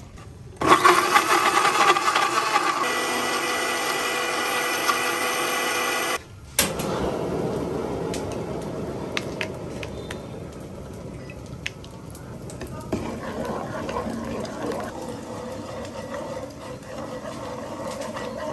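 Electric blender running for about five and a half seconds, its pitch shifting a little partway through, then cutting off suddenly. After that a softer steady hiss with light clicks as sauce is poured into a wok and stirred with a ladle.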